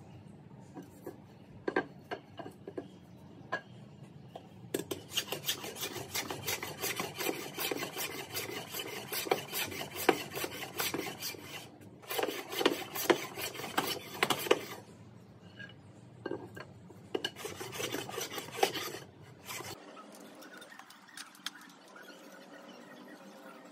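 Hand plane shaving a teak board in long spells of quick strokes, a dry rasping scrape with short pauses between spells. The scraping stops near the end.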